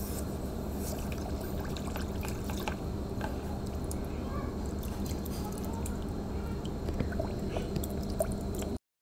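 Water fizzing and sloshing in a plastic bucket as a just-quenched casting flask's gypsum investment breaks up, then a hand scrubbing the casting free of the plaster in the water, with scattered small clicks. It cuts off suddenly near the end.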